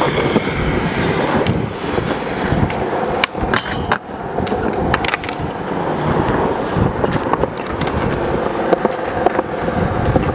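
Skateboard wheels rolling on smooth concrete with a steady rumble. Sharp clacks of the board come several times, the clearest about three to four seconds in.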